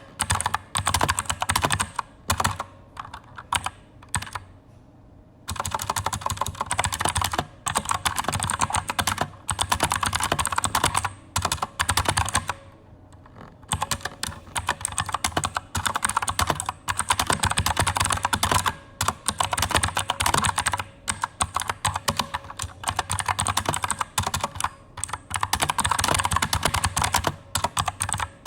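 Fast typing on a mechanical keyboard with Outemu Blue clicky switches (Aukey KM-G9): a dense stream of sharp clicks, pausing briefly twice.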